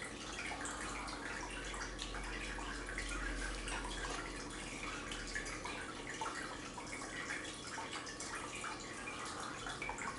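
Spoons tapping and scraping in bowls of soup, with small wet eating sounds, scattered soft clicks, over a low steady hum.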